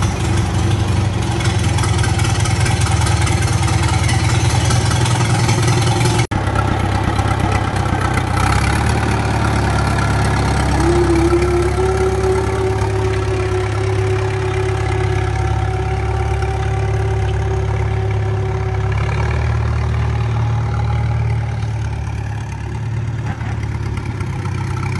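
Farmall BN tractor's four-cylinder engine running loudly as the tractor is driven off, a deep note from its exhaust stack, with a brief break about six seconds in. A steady whining tone joins for several seconds in the middle, and the engine grows slightly fainter near the end.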